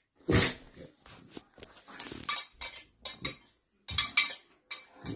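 A sudden loud noise about a third of a second in, then utensils and a plastic food container clicking and clattering as someone eats at a table.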